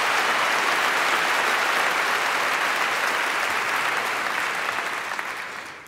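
A large audience applauding, steady at first and then dying away over the last second or so.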